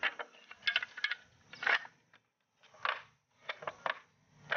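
Wooden Luban stool, a folding puzzle stool, being unfolded by hand: its interlocking hardwood parts clack and knock against each other and the wooden shelf, about nine sharp knocks at uneven intervals with light scraping between them.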